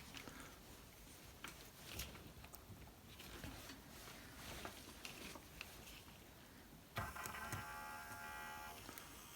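Faint clicks and taps, then about seven seconds in the small DC motor of a Toyota Camry/Solara heater blend door actuator starts on applied voltage and runs with a steady whine for about two seconds before stopping. It is being bench-tested after its brushes were resurfaced and bent for better contact to cure intermittent running.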